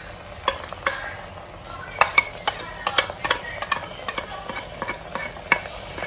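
A steel spoon clinking and scraping against a plate in sharp, irregular taps as powdered spices are knocked off it into a pan, over a low sizzle of hot oil frying ginger-garlic paste.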